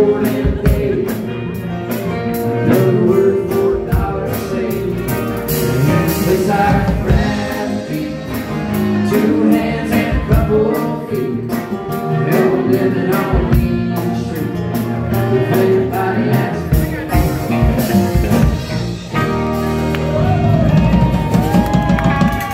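A live band playing a blues-tinged country song on acoustic guitar, fiddle and drum kit, with a steady beat.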